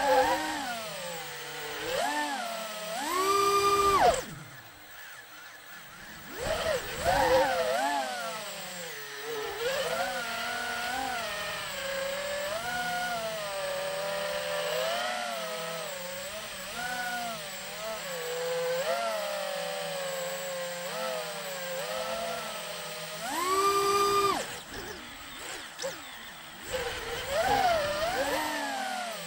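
FPV quadcopter's brushless motors and propellers whining, the pitch rising and falling with the throttle. Hard throttle punches to a loud, high held whine come about three seconds in and again about twenty-four seconds in, with a brief drop in the sound between four and six seconds.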